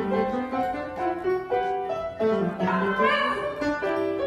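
Piano music with a Shiba Inu dog singing into a microphone: a drawn-out howl that rises in pitch and wavers about three seconds in.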